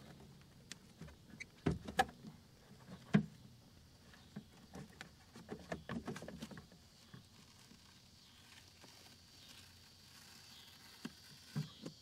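A car's rear door trim panel being worked off the door: a few sharp clicks and knocks, with rustling and scraping in between as the panel is pulled and lifted away.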